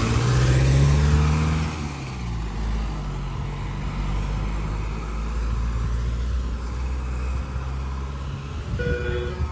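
Ice cream van's engine running as the van pulls away and moves off down the street: louder for the first two seconds or so, then a steady, lower drone. Just before the end, the van's chime tune starts up.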